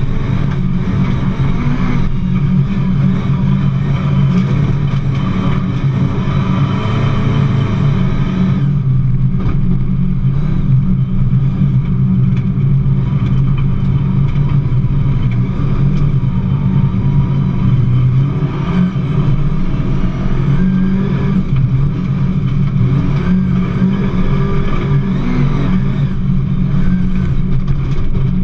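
Rally car's engine running hard under load, heard from inside the stripped, roll-caged cabin, its note staying fairly even. A bright hiss on top of it drops away about a third of the way in.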